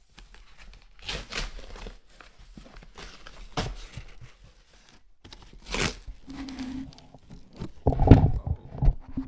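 Packaging being torn and crinkled as a camera box is unpacked, in several short rustling bursts, with a few heavy handling thumps near the end.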